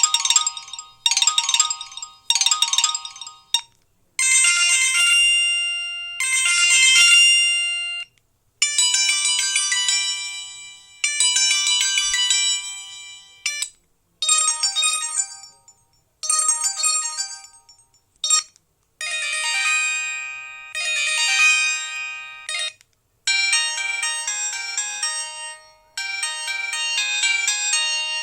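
Samsung SGH-E900 mobile phone playing its built-in ringtones one after another: short, bright, high-pitched electronic tunes, each a second or two long, many played twice in a row, with brief silences between them.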